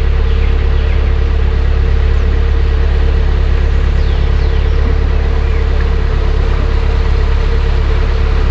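Narrowboat's diesel engine running steadily, a loud, even low hum with a constant tone above it.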